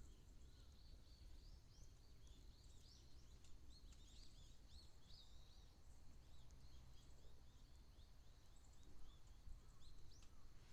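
Faint birds chirping: many quick high chirps in the first half that thin out later, over a low steady rumble.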